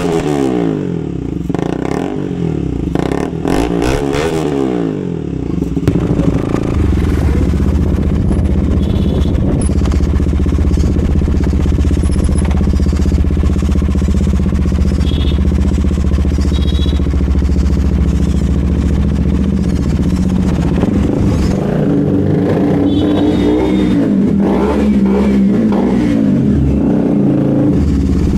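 KTM RC200's single-cylinder engine through an aftermarket SC Project exhaust, loud: revs rise and fall in the first few seconds, then it holds a steady note for about fifteen seconds before revving up and down again near the end.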